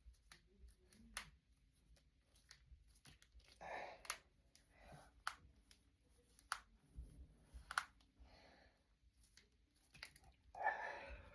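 Finger and knuckle joints cracking: a dozen or so faint, sharp pops at irregular intervals.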